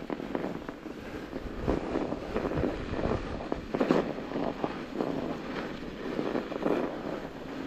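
A vintage mountain bike's 26 x 2.2 in. tyres rolling and crunching over snow, with the bike rattling over the bumps and wind rumbling on the microphone. A louder jolt comes about four seconds in.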